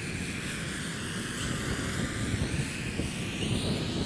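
Syma X8W quadcopter's motors and propellers whining, the pitch dipping and then climbing as it is held at full forward against a gusting wind. Heavy wind rumble on the microphone runs underneath.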